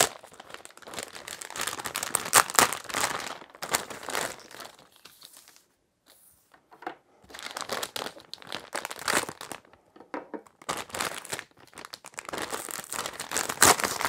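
Packaging of a new HDMI cable being opened by hand: crinkling and tearing, in stretches, with a brief pause about halfway through.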